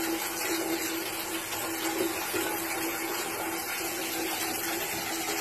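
Shower spray running steadily onto a wet cat and the tiled shower floor: an even hiss with a steady hum underneath.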